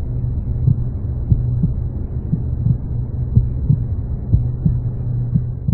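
Heartbeat-style soundtrack effect: soft double thumps about once a second over a steady low drone, cutting off suddenly near the end.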